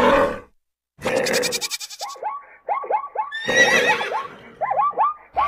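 Animal call sound effects: a harsh cry cuts off about half a second in, then after a short silence comes a run of short, quickly repeated calls, broken by harsher noisy cries.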